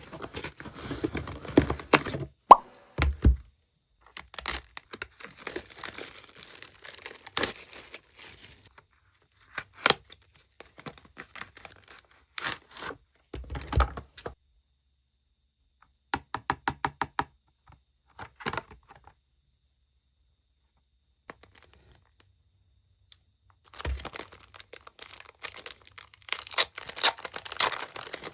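Packaging being opened and handled by hand: plastic wrap and paper crinkling and tearing, with knocks and taps as items are set down. About sixteen seconds in there is a quick run of small ticks. There is a pause of a few seconds before the crinkling picks up again near the end.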